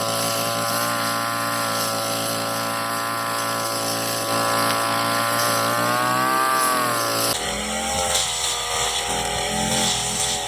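Petrol brush cutter engine running at high speed. Its pitch rises and falls once about two-thirds of the way through, then the sound changes abruptly.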